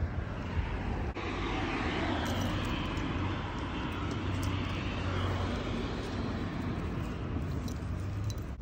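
Engine noise of a passing vehicle: a wide, even rush that starts sharply about a second in, swells gently through the middle and drops away near the end, over a steady low hum.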